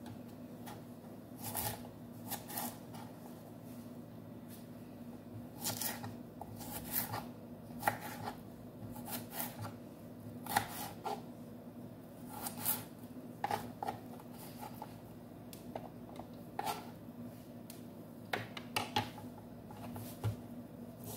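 Knife slicing a cucumber on a wooden cutting board: irregular crisp cuts and knocks of the blade against the board, with pauses between them, over a faint steady hum.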